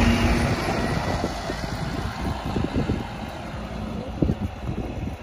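A road vehicle passing close by, its engine note fading out within the first second, followed by street background and wind buffeting the microphone.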